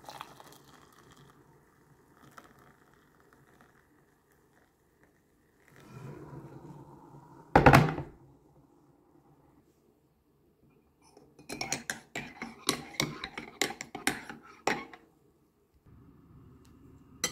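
Kitchen crockery sounds: hot water poured from a kettle into a ceramic mug, faint at the start, then a single loud knock about halfway through. Near the end comes a few seconds of quick clinking of crockery and cutlery.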